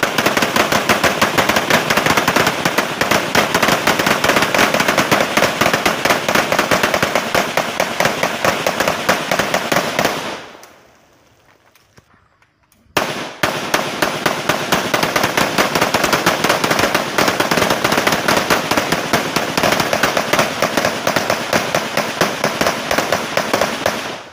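Simulated battle fire: a rapid, unbroken crackle of bangs with dust bursts thrown up around the crawl pit. It fades out about ten seconds in and starts again abruptly about three seconds later.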